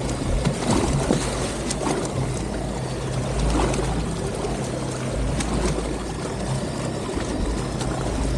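Boat engine running steadily under a wash of water noise.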